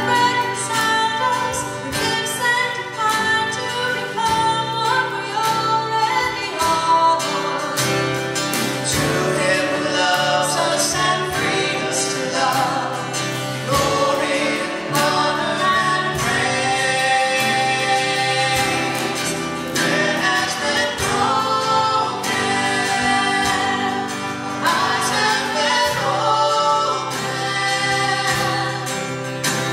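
A woman and a man singing a worship song together over a strummed acoustic guitar.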